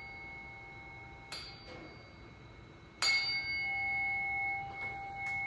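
A 128 Hz tuning fork is struck twice: lightly about a second in, then harder just past the middle. After the second strike it rings on steadily with clear, high overtones.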